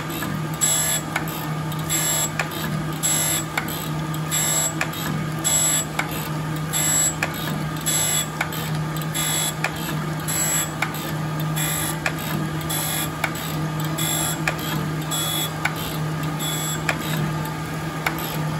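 Jones & Shipman 1400 surface grinder grinding an A36 steel block under flood coolant: a steady motor and spindle hum with a hiss from the wheel on the steel that swells about once a second as the table carries the work back and forth under the wheel.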